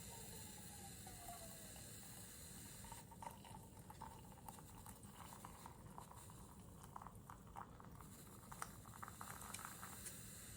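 Faint steady hiss. About three seconds in the hiss thins out and quiet, irregular light ticks and patter follow until near the end.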